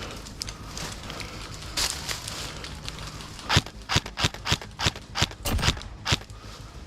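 A quick, slightly uneven run of about nine sharp cracks or impacts, three to four a second, starting about halfway through, over a low outdoor background.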